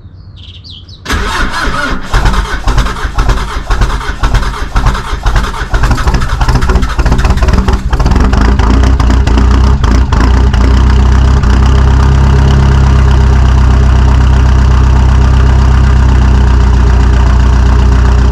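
Mitsubishi 4D56 four-cylinder diesel engine starting: it catches suddenly about a second in, runs unevenly for several seconds, then settles into a steady idle. This is the engine the owner describes as hard starting on cold mornings and suspects of faulty glow plugs.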